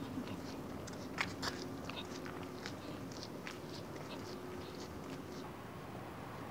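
Footsteps on a paved street: light, irregular clicks about twice a second over a faint steady hum, stopping about five and a half seconds in.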